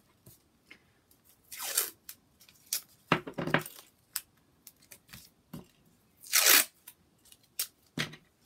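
Masking tape being pulled off its roll, two long rips that fall in pitch, about a second and a half in and again, loudest, past six seconds. Between them come shorter crackly tearing and handling noises of the tape, and a few small ticks.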